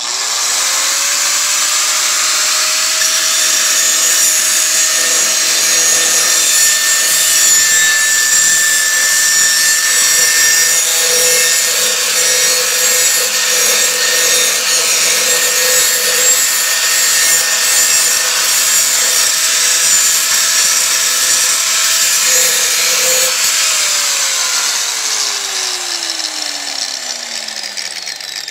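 Metabo HPT 5-inch, 10.5-amp angle grinder switched on with its paddle switch, its whine rising quickly to full speed. It runs steadily with a loud high hiss for about 23 seconds, then is switched off and winds down, the whine falling steadily in pitch.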